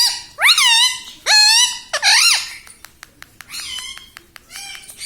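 Indian ring-necked parakeet screeching four loud calls in quick succession, each sweeping up and down in pitch. A run of sharp clicks and softer chirps follows.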